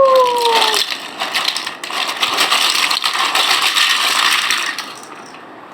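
Many small plastic toy building blocks clattering and rattling together as they are tipped out of their box, a dense run of clicks that stops shortly before the end.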